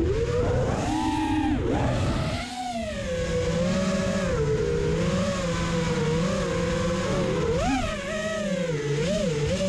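5-inch FPV quadcopter's brushless motors and props whining, the pitch climbing and falling as the throttle changes, with a dip a couple of seconds in and a sharp rise near the end.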